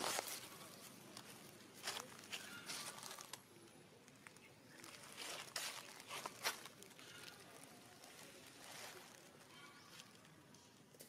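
Faint rustling and crackling of dry leaf litter, with a few sharp snaps, the loudest about two seconds in and again around six seconds. Faint distant voices come through now and then.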